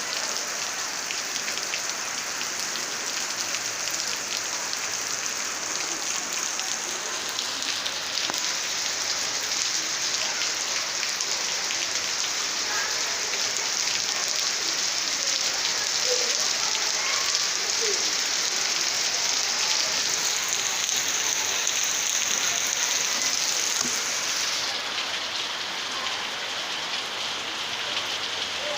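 Steady heavy rain falling, an even hiss that grows heavier about eight seconds in and eases again a few seconds before the end.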